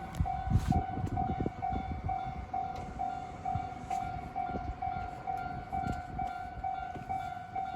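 Japanese level-crossing warning bell ringing, its electronic tone pulsing about twice a second, with low rumbling and irregular thuds underneath.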